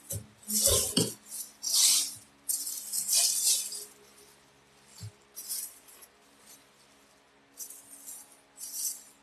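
Packaging rustling and crinkling in short irregular bursts as a box is unpacked, with a low thump about a second in.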